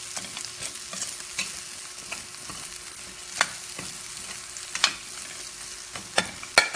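Metal ladle stirring and scraping crushed chicharon, chopped onion and sliced green chilies in a steel wok over a steady frying sizzle, with scattered sharp clinks of metal on metal.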